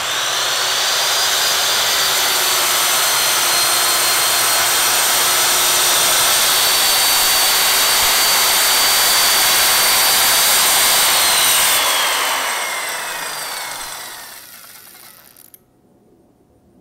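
Circular saw cutting through a sheet of MDF. The motor whine rises as it comes up to speed at the start, holds steady under load through the cut, then falls in pitch as the saw winds down about twelve seconds in.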